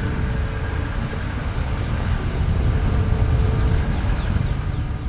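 Car driving slowly along a rough dirt lane: a steady low rumble of engine and tyres, with wind buffeting the microphone held outside the car.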